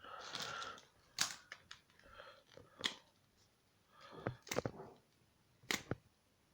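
Small plastic action-figure pieces and packaging being handled: a brief rustle, then several sharp clicks and taps with soft scraping between them.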